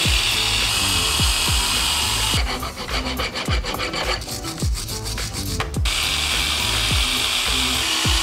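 Angle grinder with a wire brush wheel scrubbing a brake caliper clean, a loud steady rasping hiss that turns choppy and stop-start from about two and a half seconds in to about six seconds, then steadies again. Background music with a steady beat plays underneath.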